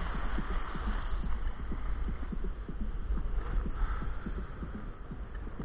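Sea water sloshing and slapping against a camera housing on a kayak in the surf, heard muffled: a steady low rumble with a stream of small irregular knocks.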